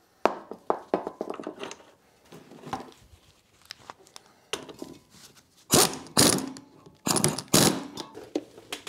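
Metal knocks and clanks from handling a coil-spring strut assembly and tools on a workbench: light scattered knocks at first, then two louder bursts of clattering about six and seven seconds in.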